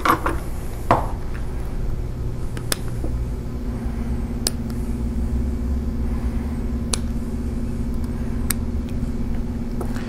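Scissors snipping through the excess braided shield of an LMR-400 coaxial cable: about half a dozen sharp snips a second or two apart, the first, about a second in, the loudest. Under them a steady low rumble, joined about three and a half seconds in by a steady hum.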